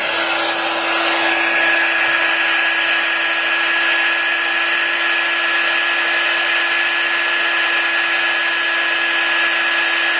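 Hot-air blower running steadily, a rushing blow with a constant motor whine, heating the adhesive under a cracked iPad glass panel to loosen it.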